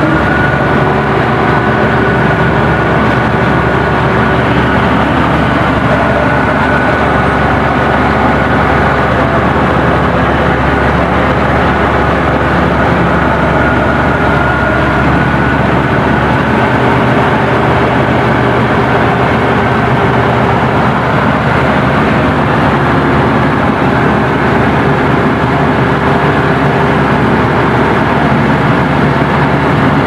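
Komatsu crawler bulldozer's diesel engine running steadily under way, heard close from the operator's seat. A faint high whine sits over it through the first half.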